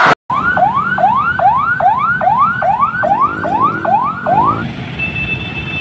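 An electronic siren yelping: a rising whoop repeated about twice a second for about four seconds. Near the end it gives way to a steady, high horn-like tone.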